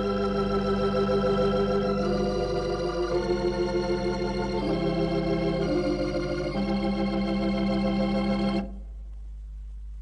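Organ music playing slow, sustained chords that change every second or two, cutting off suddenly near the end and leaving a low steady hum.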